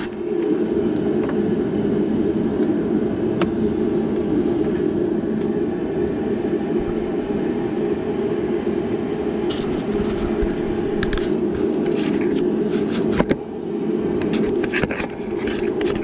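A loud, steady machine drone, with scattered clicks and clatters of hands working among the plastic fan shroud and transmission cooler lines, most of them near the end.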